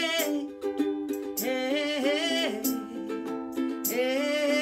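Ukulele strummed in a steady rhythm, with a woman's wordless singing over it in three short phrases.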